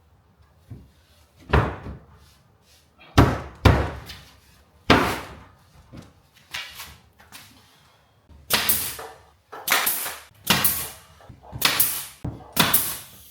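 A run of sharp knocks and bangs from timber wall boards being fixed in place. The hits are scattered at first, then come in quick groups of two or three in the second half.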